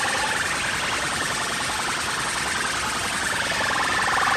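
A DJ sound system at full volume playing a distorted, siren-like electronic sound with a fast buzzing pulse. It fades a little in the middle and swells back near the end.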